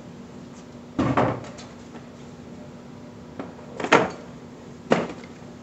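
Plastic infant car seat being handled and set down onto a metal-tube stroller frame: a knock about a second in, then two sharper knocks in the last two seconds as the seat lands on the frame.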